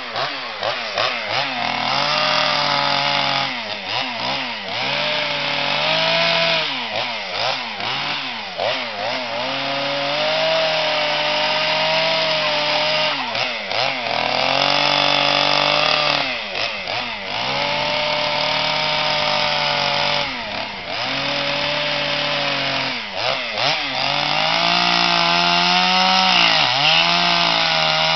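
Two-stroke chainsaw cutting into wood for carving, its engine pitch dropping again and again as the chain bites and rising as it is eased off.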